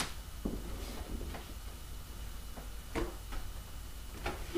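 Faint scattered clicks and taps from handling a hinged RC plane wing as its hinge joints are checked, over a low steady hum.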